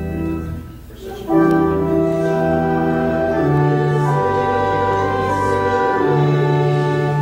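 Organ playing slow held chords; one chord dies away about a second in, and after a brief pause a new, louder chord begins, with the harmony shifting every second or so after that.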